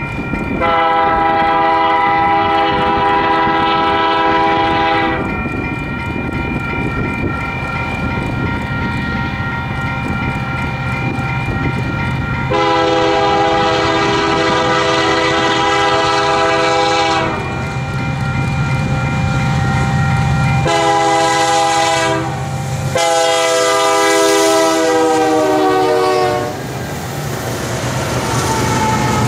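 A Union Pacific diesel freight locomotive's air horn sounds the grade-crossing signal of long, long, short, long blasts, the last blast dropping in pitch as the lead unit passes. Under it the diesel locomotives' rumble grows louder, and they roll past near the end.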